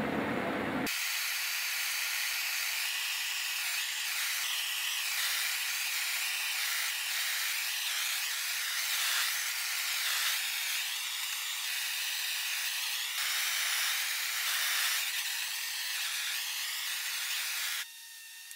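Gas torch flame hissing steadily as it heats a steel gate frame for a hot-applied plum brown finish. It starts about a second in and cuts off suddenly near the end.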